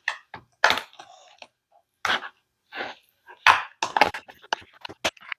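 Seasoned raw steak bites being stirred in a container with a utensil: irregular short scrapes and knocks, a few louder ones in the second half.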